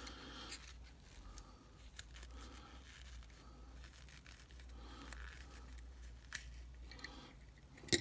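Faint fibrous tearing and scraping as the cotton packing is pulled out of a metal Zippo lighter insert by hand, with small scattered ticks. A single sharp click sounds near the end.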